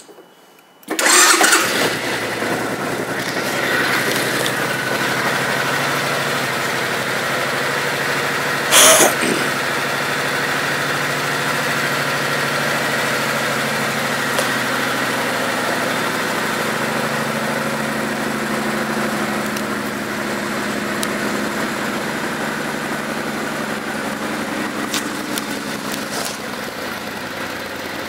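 2006 Suzuki Boulevard C90T's 1,462 cc V-twin starting about a second in, then running at a steady idle. A brief loud burst of noise cuts across it about nine seconds in.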